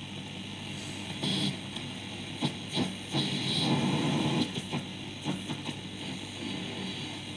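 Valve radio being tuned by hand between stations: hiss and static from the loudspeaker with irregular bursts of noise and brief snatches of signal, over a steady low hum.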